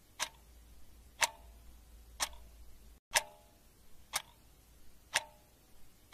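Clock ticking about once a second, each tick sharp with a brief ring after it.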